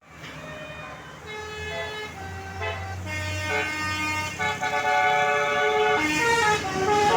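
Tour bus 'telolet' multi-tone horn playing a tune: several horn notes sound together and change pitch in steps, growing louder toward the end, over a low rumble.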